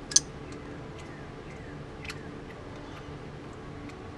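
A sharp metallic click just after the start, then a softer click about two seconds in and a few faint ticks, from a stud extractor and wrench being worked on a broken exhaust manifold stud. A steady low hum runs underneath.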